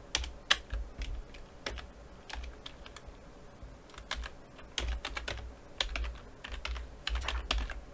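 Typing on a computer keyboard: irregular key clicks in short runs with brief pauses, as a new unit is entered into an army roster.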